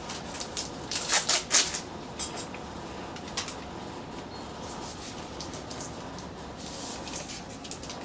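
Lab equipment handled at a bench: a quick cluster of sharp clicks and rustles about a second in, a couple more a moment later, then lighter scattered clicks and rustling.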